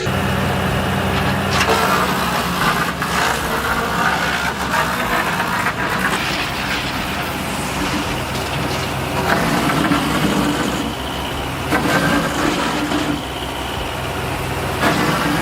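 Engine-driven wood chipper running with a steady drone, overlaid by irregular bursts of noise every second or two.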